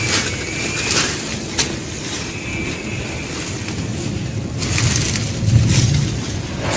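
Dry plant leaves and stalks rustling and crackling as they are pulled out of a garden bed by gloved hands, with a few sharp cracks in the first two seconds and a louder stretch of rustling about five seconds in, over a low, uneven rumble.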